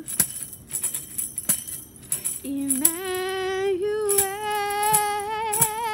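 Hand-held headed tambourine struck and shaken in a loose beat, its jingles ringing. About two and a half seconds in, a woman's voice comes in on one long sung note with vibrato, rising slightly.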